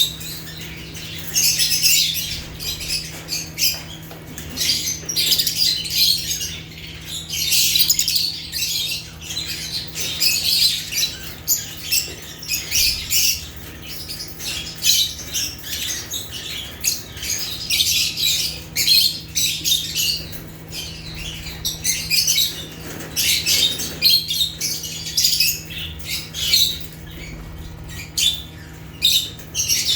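A flock of lovebirds chirping and squawking continuously in quick, high-pitched overlapping calls, with a steady low hum underneath.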